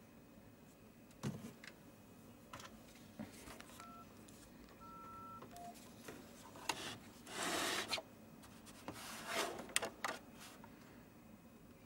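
A few short electronic beeps at two pitches, among light clicks and handling knocks. A brief rush of noise comes about seven seconds in, the loudest sound here, and a shorter one follows about two seconds later.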